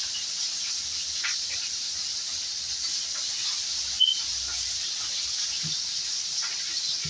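Food cooking on a stove with a steady sizzling hiss. One sharp click about four seconds in.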